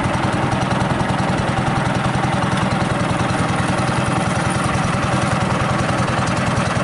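Small wooden boat's engine running steadily with a rapid, even beat as the boat travels along the river.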